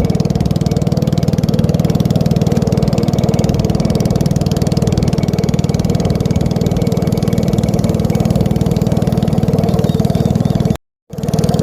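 A small engine running steadily at constant speed, with a fast even pulsing. It cuts out briefly near the end and comes straight back.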